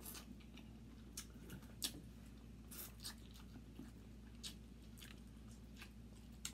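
Faint eating sounds: scattered sharp clicks, smacks and crunches of biting and chewing into seafood boil eaten by hand.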